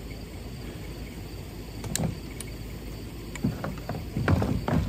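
Handling noise on a plastic kayak hull: a single sharp knock about two seconds in, then a run of knocks and scuffs near the end, over steady low background noise.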